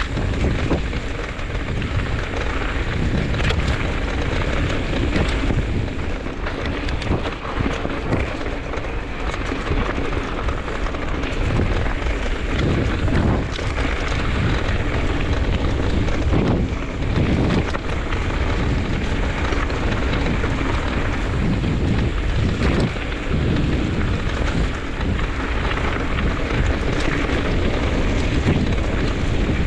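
Steady wind rumble on the microphone from moving along a trail, with occasional brief knocks and rustles.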